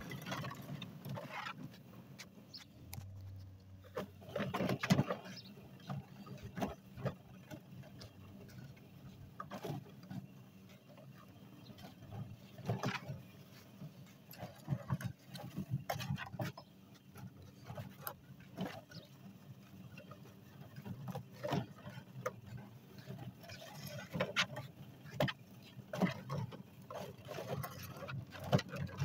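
Hoover spin sweeper L1400 outdoor sweeper being pushed over a driveway picking up grass clippings, its brushes and wheels rattling with irregular clicks and knocks.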